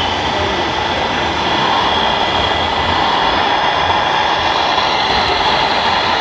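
Radio-controlled model trucks and construction machines running, a steady mechanical whir of small electric motors and gearboxes with a faint whine.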